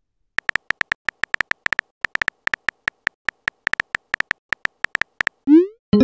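Simulated phone-keyboard tap sounds from a texting-app animation: a run of short clicks, about five a second, as a message is typed. Then a quick rising swoop as the message is sent, and a chime begins right at the end.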